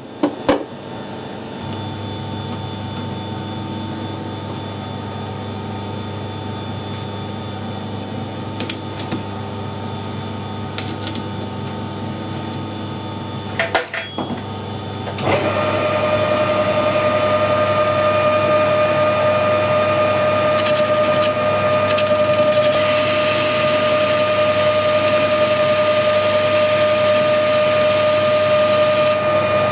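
Metal lathe with a hardened steel wheel stud held in its three-jaw chuck. The first half is a steady low hum with a few light clicks and knocks as the chuck is handled. About fifteen seconds in the spindle starts and a louder, steady machine whine with a clear ringing tone holds to the end.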